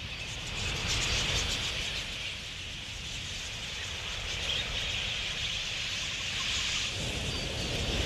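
A flock of wild budgerigars chattering in a dense, steady twitter, with a constant low rumble underneath.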